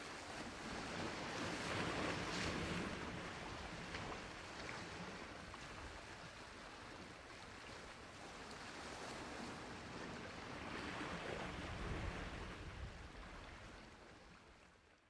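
Rushing ambient noise with no tone in it, swelling about two seconds in and again around eleven seconds, then fading out near the end.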